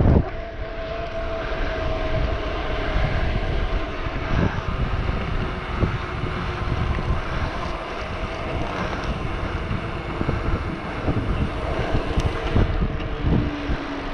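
Wind rushing and buffeting over the microphone of a camera on a moving bicycle, a steady roar with irregular gusts throughout.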